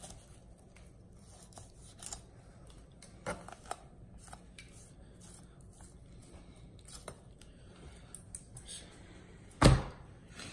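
Knife slicing through pig skin and fat as the skin is peeled back from a raw pork leg: faint, scattered clicks. One loud thump comes near the end.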